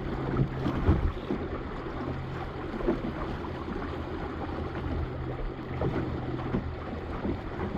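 Wind rushing over the microphone and water washing against the hull of a small sailboat under sail, with a low steady hum underneath.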